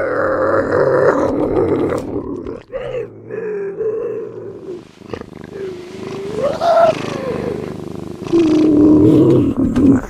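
A wild cat of the lynx genus giving a series of long, wavering yowls, one of them rising in pitch and then falling.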